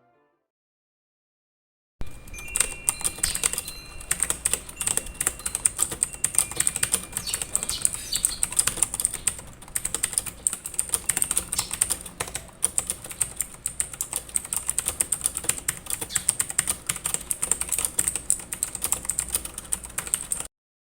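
Typing on a mechanical keyboard fitted with Akko CS switches: a dense, uneven run of keystrokes that starts about two seconds in and stops abruptly near the end.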